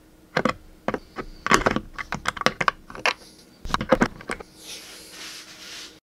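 Irregular metallic clicks and taps of needle-nose pliers gripping and turning a small brass propeller on its shaft, about a dozen sharp ticks over four seconds. A softer rushing noise follows, then the sound cuts off suddenly.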